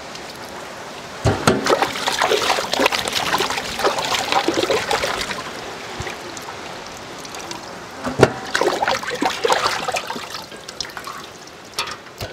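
Water splashing and trickling as raw mutton legs are washed in a large metal pot of water and lifted out dripping, with two louder splashes about a second in and about eight seconds in.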